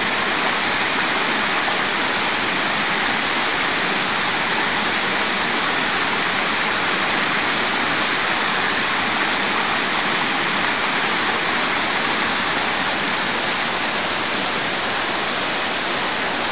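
Small waterfall cascading over boulders into a shallow rock pool, a steady rushing of water.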